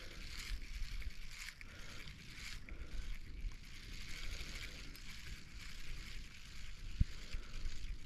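Wind buffeting the microphone over small waves lapping at the bank, with one low thump about seven seconds in.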